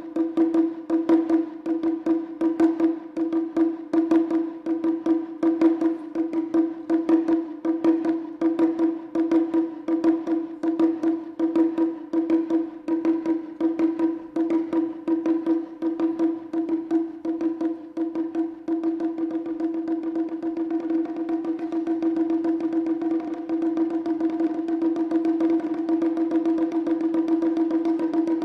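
Wadaiko (Japanese taiko) music: fast, even, sharp drum and stick strokes over a held pitched tone. About two-thirds of the way in, the strokes close into a near-continuous roll.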